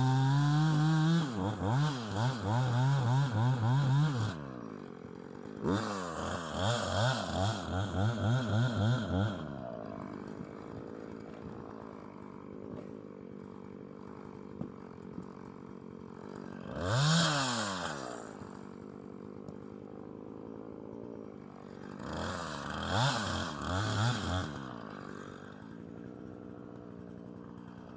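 Two-stroke Husqvarna Rancher chainsaw bucking a downed ash log. It runs at full throttle, then its revs rise and fall repeatedly in two spells before it drops to idle. It gives a single rev about halfway through and another spell of revving near the end.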